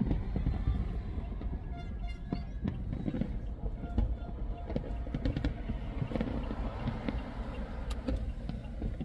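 Steady low road-and-engine rumble inside a moving car, with scattered sharp bangs and cracks from fireworks bursting in the sky.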